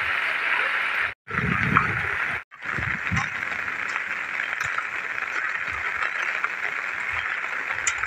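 Steady hiss of heavy rain and running floodwater, with low rumbles in the first few seconds. It cuts out briefly twice, about a second and two and a half seconds in.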